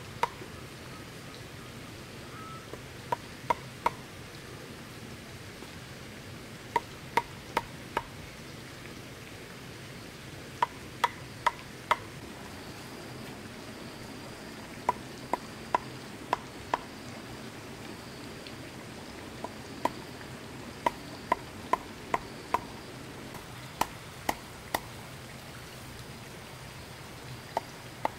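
Chopping on a board: sharp knocks come in short runs of three to eight strokes, about two to three a second, with pauses of a second or two between runs.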